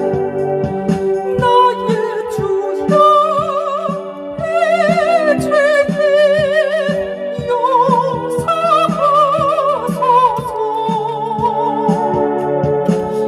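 Electronic keyboard playing a hymn: a wavering lead melody over sustained organ-like chords, with a steady accompaniment drum beat.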